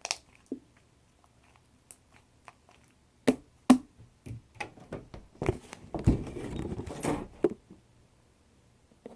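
Close handling noise: two sharp knocks a little over three seconds in, then about two seconds of rubbing and rustling, with a few faint clicks around them.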